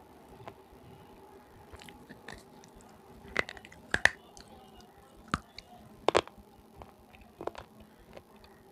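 Crisp bites and crunchy chewing on a red slate pencil (sileti), close to a clip-on mic. About five sharp cracks, the loudest about four and six seconds in.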